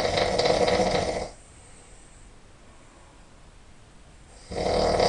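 A person snoring really loud: one long snore ends about a second in, and after a pause of about three seconds the next snore begins near the end.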